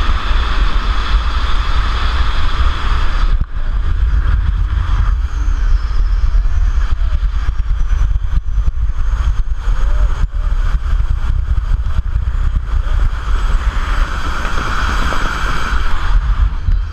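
Wind buffeting a helmet- or body-mounted action camera's microphone high in the air during a skydive: a loud, steady heavy rumble with a hiss on top. It drops out for an instant about three and a half seconds in, then comes back rougher and more gusty.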